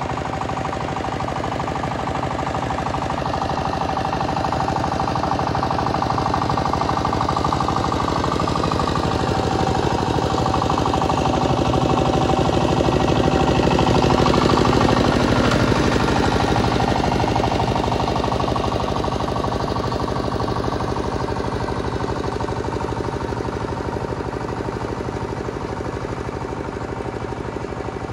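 Power tiller's single-cylinder diesel engine running with a rapid, even chugging. It grows louder up to about halfway through, then fades again, as the machine comes close and moves away.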